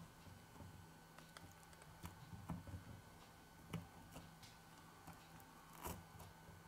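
Faint, scattered small clicks and light scraping of a plastic spudger prying a smartphone's power-button flex cable off the metal frame.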